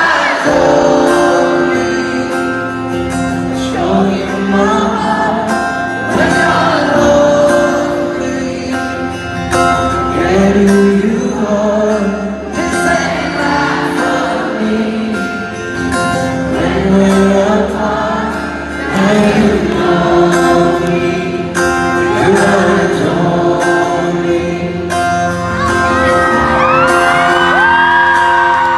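Live ballad in an arena: a male singer's voice through the PA over strummed acoustic guitar, with audience voices mixed in. Near the end a high voice from the crowd rises and holds.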